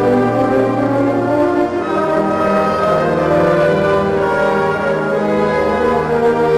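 Youth wind band (clarinets, saxophones, brass and sousaphone) playing long held chords, with the bass notes changing about a second and a half in.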